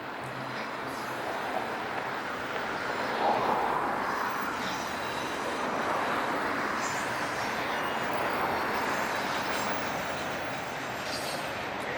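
Steady rushing noise of passing vehicles that swells about three seconds in and eases slightly toward the end.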